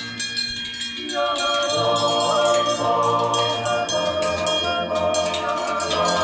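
Choral singing with music, a melody of held notes that shifts pitch several times, over a clanging of bells.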